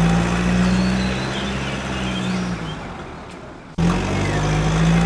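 Truck engine sound effect running steadily with a strong low hum; it cuts off briefly just before four seconds in and starts over as the same clip repeats.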